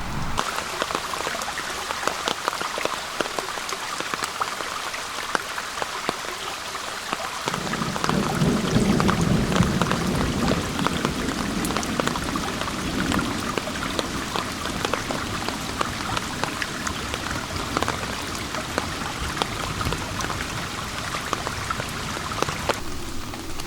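Steady summer rain falling in a forest, with many separate drops striking close by. About seven seconds in, a low rumble of thunder swells up and rolls on for several seconds before fading.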